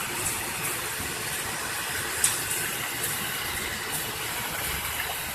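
Gold washing plant for alluvial sand running: a steady machinery noise with a strong hiss, and a few sharp knocks, the clearest about two and a half seconds in.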